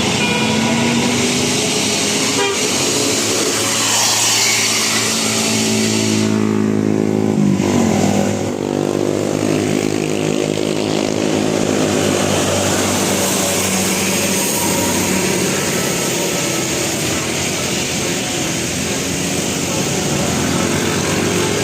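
Indonesian telolet bus horn, a basuri-type musical horn, sounding a run of changing tones over the noise of vehicles.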